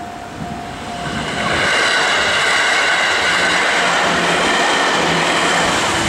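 JR Central 311 series electric train passing over a level crossing. Its rolling noise builds from about a second in and stays loud from two seconds on, with several steady high-pitched tones. The crossing's warning bell rings at the start, then is drowned out by the train.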